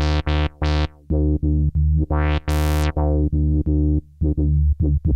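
Behringer Odyssey analog synthesizer playing a staccato bass line. A fast filter envelope makes each note start bright and close quickly to a dull tone, giving it a thump. About two seconds in, one longer note sweeps open much brighter, and near the end the notes get shorter and quicker.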